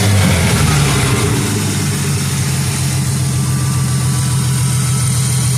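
1997 Ford Mustang's 3.8-litre V6 engine running, its pitch dropping back from a rev in the first second or two and then idling steadily.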